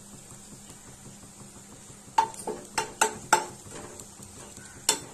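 Metal spatula scraping and tapping a non-stick frying pan while stirring frying vadagam. It is quiet for about two seconds, then comes a quick run of about five ringing scrapes, and one more just before the end.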